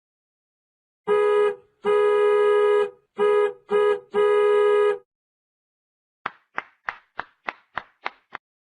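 A horn-like tone sounded in five steady blasts of uneven length, short and long, followed after a pause by eight quick short notes, each struck and dying away fast.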